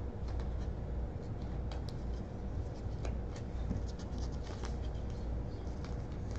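Hands opening a trading-card pack and flipping through the cards: scattered light clicks, ticks and scratchy rustles at an irregular pace.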